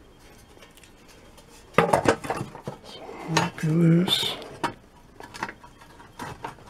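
Pliers clinking and scraping against a rivet and the thin steel blade of a small shovel: an irregular run of metal clicks and clanks starting about two seconds in.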